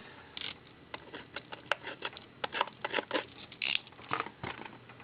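Packaging being handled as a trading-card hobby box is opened: a run of quick, irregular clicks and crinkles.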